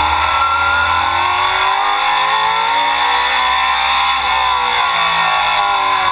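USAR Pro Cup Ford stock car's V8 engine at race speed, heard from inside the cockpit, climbing steadily in pitch for about four seconds and then falling away.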